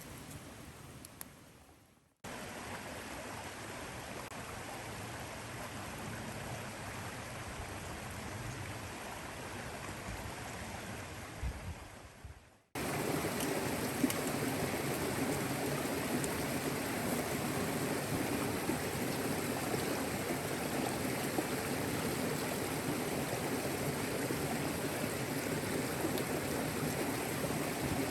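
Steady rushing water noise, even and without distinct drips or crackles. It changes abruptly twice: it cuts in about two seconds in, then cuts to a louder, fuller rush at about twelve and a half seconds.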